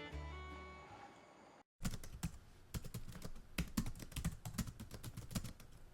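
Background music fading out, then about four seconds of rapid, irregular clicks and taps.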